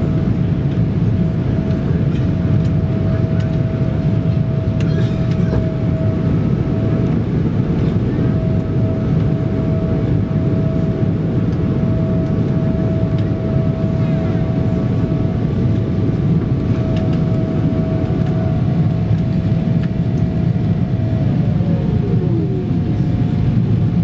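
Boeing 777 cabin noise in the climb after takeoff: the engines and rushing air make a loud, steady low rumble with a thin whining tone over it. Near the end the whine slides down in pitch.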